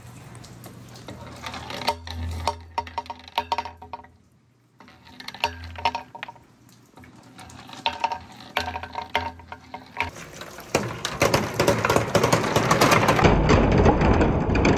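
Hollow plastic balls clattering through a PVC pipe and splashing into a tub of water, in clusters of knocks. From about 11 seconds in, a dense, loud rattle of many balls rolling down a wet wooden water slide builds up.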